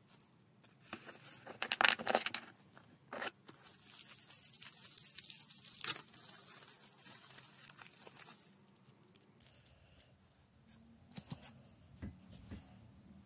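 Clear plastic bubble-wrap packaging crinkling and tearing as a Beyblade top is unwrapped, loudest about two seconds in and again near six seconds. Then it quietens, with a few light clicks near the end.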